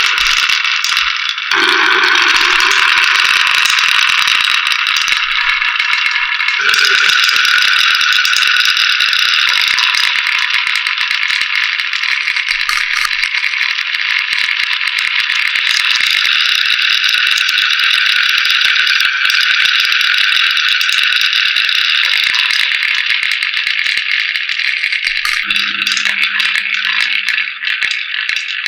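Many marbles rolling and clicking down wooden HABA marble-run slopes: a loud, dense, continuous rattle.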